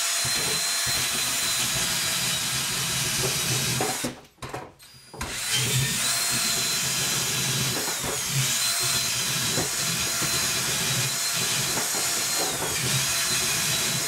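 Ryobi cordless drill with a long bit running, worked back and forth through flaky OSB subfloor to hog out the hole. It runs for about four seconds, stops for about a second, then starts again and runs on, its motor pitch dipping now and then.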